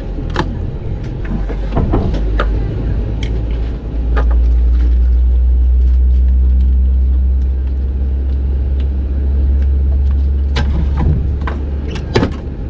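Aircraft cabin rumble heard from the galley, at its strongest for several seconds midway. Over it come sharp clicks and knocks of a plastic water bottle and paper cups being handled on the metal galley counter as water is poured out.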